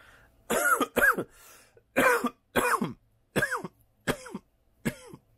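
A person coughing hard in a fit of about seven separate coughs, spaced roughly half a second to a second apart, while smoking a cannabis joint.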